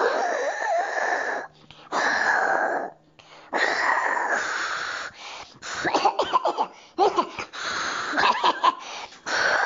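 A person's voice acting out the wolf blowing hard at the house: three long, forceful blows of breath in the first five seconds. These are followed by shorter, strained blows mixed with voiced grunts, and one more blow near the end.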